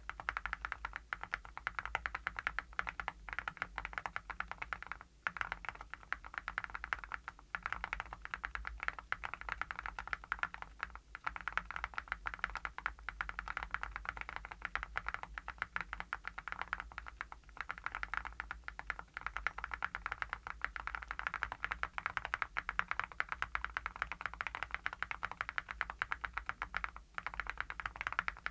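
Continuous fast typing on a mechanical keyboard with Awekeys full-metal (satin gold) keycaps on a polypropylene-plate archon REAL IX KUSTOM board: a dense, even stream of key clacks.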